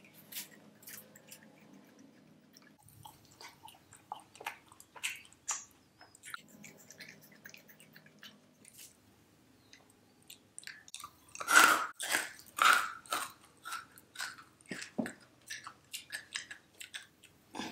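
Close-miked chewing of sugar-coated jelly candy: a run of soft mouth clicks and smacks, loudest about two-thirds of the way through.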